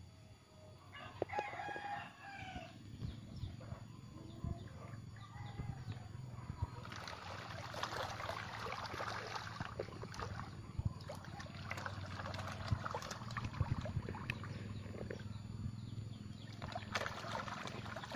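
A rooster crows once, about a second in, a call of a second and a half that falls at the end. From about seven seconds on, a long stretch of dense crackling noise with many small clicks.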